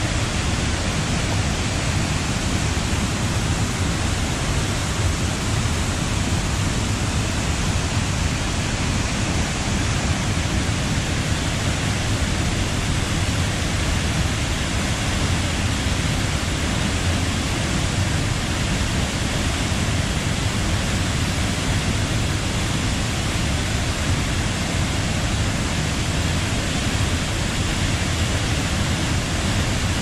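Lingjiao Waterfall pouring over its rock ledge into the plunge pool: a steady, unbroken rush of falling water.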